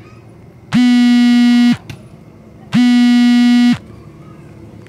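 Electric horn of a 250 cc off-road buggy sounding twice: two buzzy one-second blasts at the same steady pitch, about two seconds apart.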